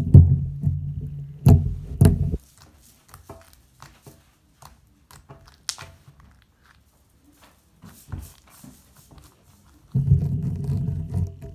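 Background music that stops about two seconds in and comes back near the end; in the gap, faint scattered clicks and small sticky pops of slime being squished and poked.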